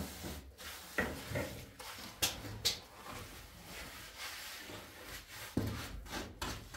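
Scattered scrapes and light knocks of hand work: a trowel and gloved hand working wet cement across a concrete floor, and a round flour sieve being shaken and tapped over a metal tray.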